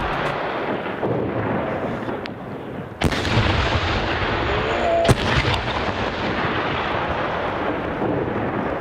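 Large firework shells going off with sharp, loud bangs: a faint crack a little after two seconds, then two big bangs about three and five seconds in. A steady noisy din continues underneath.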